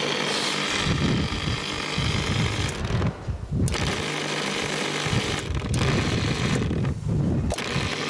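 A motor-driven machine running with a harsh, rattling buzz over a steady low hum. The buzz drops away briefly three times.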